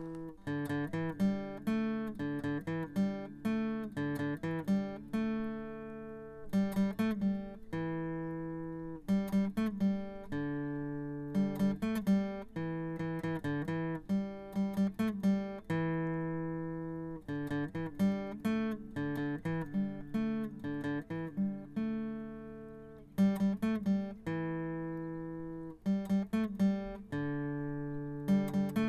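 Acoustic guitar music: a slow picked pattern of notes and chords, each ringing out and fading.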